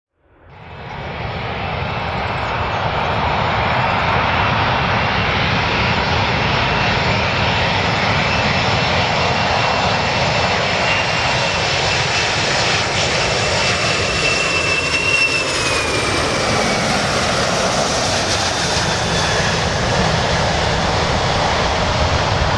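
Airplane engines running loud and steady, fading in over about a second. Faint tones within the noise drift slowly down in pitch about halfway through.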